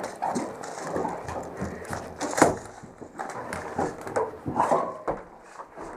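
Footsteps, knocks and scuffs on wooden boards while climbing up into a wooden tower, irregular, with one louder thump about two and a half seconds in.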